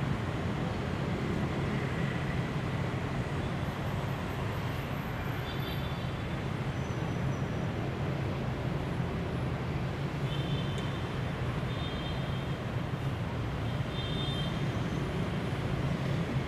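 Steady low city hum and traffic noise, with a few short, faint high-pitched tones.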